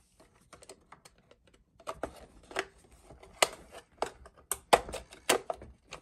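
Hard plastic clicking and knocking from the battery compartment and snap-on cover of a Radio Shack 4x4 RC monster truck being handled and fitted. A few faint clicks at first, then from about two seconds in a quicker run of sharp, louder clicks.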